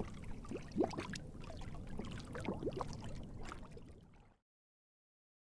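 Water sloshing and gurgling over a low rumble, with a few short rising notes; it cuts off abruptly about four seconds in.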